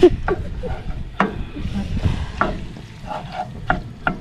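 Teriyaki chicken and noodles being stir-fried in a pan: a sizzle, with a cooking utensil scraping and knocking against the pan about every second.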